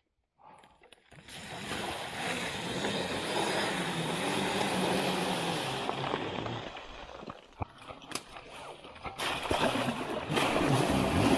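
Water and mud splashing and sloshing as an electric dirt bike rides through a bog, starting about a second in. It eases to a quieter spell with a few sharp knocks, then picks up again near the end.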